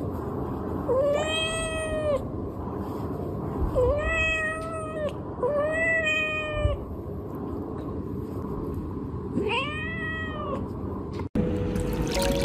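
Domestic cat meowing: four long, drawn-out meows, each rising, holding and falling in pitch, a few seconds apart.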